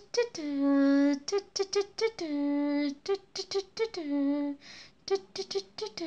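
A high voice singing a short sing-song tune: a run of quick syllables, then a held note that slides down as it starts, repeated three times.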